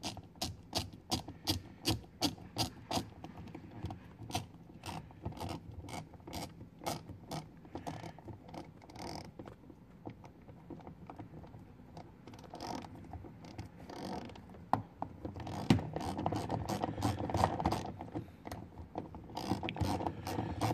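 Hand ratchet clicking as it drives a 10 mm screw into the car door's trim: runs of sharp clicks, several a second, with brief pauses and one louder knock late on.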